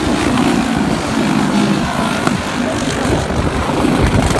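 Several racing go-kart engines, Briggs & Stratton Animal four-stroke singles, running at speed as the pack laps, with one kart passing close near the end.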